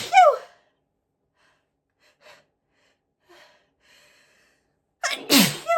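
A person sneezing loudly with a high-pitched 'apchhee'. The tail of one sneeze falls away at the start, then come a few faint breaths. A second sneeze arrives near the end: a quick intake, a loud burst and a falling voiced 'choo'.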